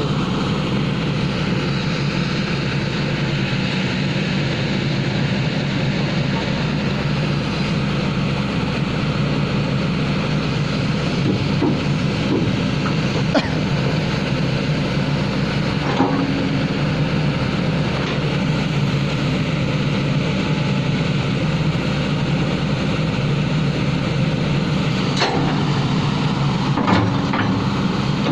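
Backhoe loader's diesel engine running steadily, with a few short sharp knocks.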